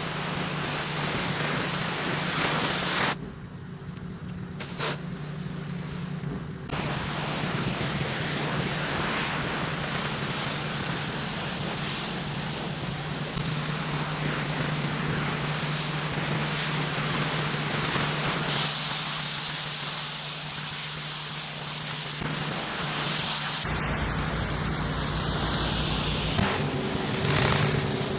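Pressure washer spraying concrete: a steady hiss of the water jet over the drone of the washer's engine. The spray dips for a few seconds early on.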